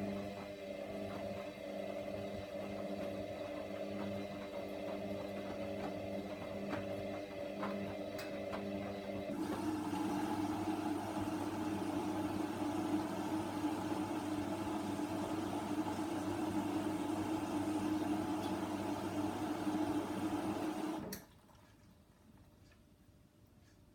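Hoover washer dryer running a wash on a load of towels: a steady motor hum with a few light clicks. About nine seconds in it changes to a louder, rushing sound, which cuts off suddenly a few seconds before the end.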